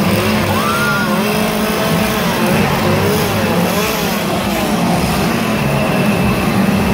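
A chainsaw's small two-stroke engine running steadily, with a crowd's voices and shouts over it.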